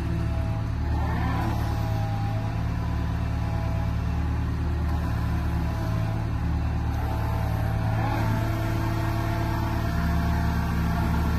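CAT M315 wheeled excavator's diesel engine running steadily while the hydraulics drive the tiltrotator, turning and tilting the bucket. A higher whine over the engine shifts in pitch as each movement starts and stops.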